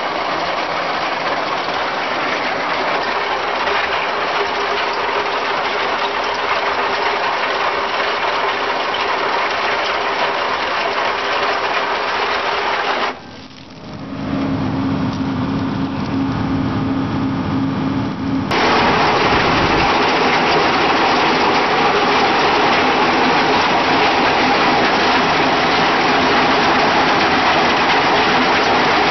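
Small mobile cone crusher running and crushing river stones into gravel, a loud, steady, gritty mechanical din. About 13 s in the sound drops briefly, then has a steady low hum for several seconds, and it turns louder and even again at about 18 s.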